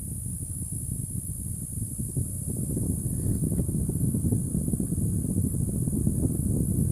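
Winix WACU150 air purifier's PlasmaWave ionizer giving off a steady high-pitched whine over a fluctuating low rumble. The whine is the electrical sterilization of the PlasmaWave function at work, not a fault.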